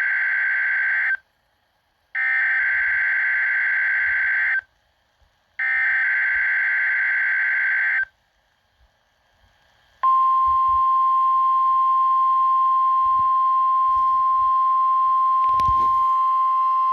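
NOAA Weather Radio test signal received over a weather radio: the end of one digital SAME header burst, then two more identical bursts, each about two and a half seconds long with a second of silence between them. About ten seconds in, the steady single-pitch 1050 Hz warning alarm tone starts, with radio hiss under it; these are the signals that automatically activate alerting receivers.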